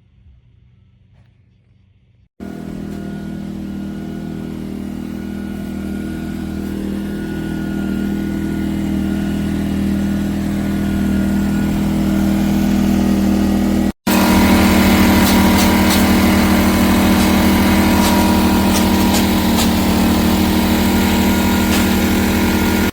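ERAYAK 2400W portable inverter generator's small engine running steadily at close range. It starts abruptly about two seconds in and slowly grows louder. There is a brief dropout midway, after which it is louder and harsher, and it cuts off abruptly at the end.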